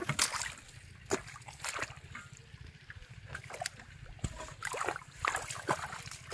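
Irregular small splashes and sloshing of shallow muddy water, from fish being dropped into a water-filled aluminium pot and feet wading through the mud. The loudest splash comes just after the start.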